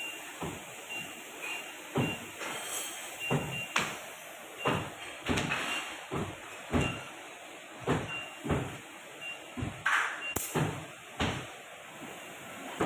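A forklift at work with a heavy crated load: a string of irregular knocks and clunks, with a faint short beeper repeating every half second or so.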